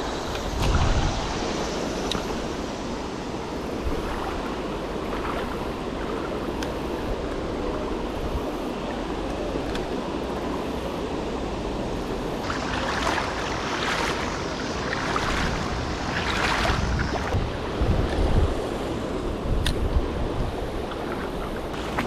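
River water rushing steadily over a shallow rocky riffle. In the second half come louder, irregular splashes from wading steps through the shallows.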